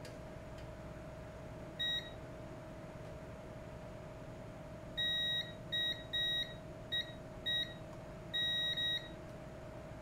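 Digital multimeter's continuity beeper sounding as the test probes are touched across points on a drone flight controller: one short beep about two seconds in, then a run of brief, unevenly spaced beeps from about halfway on, each beep marking a closed circuit between the probes.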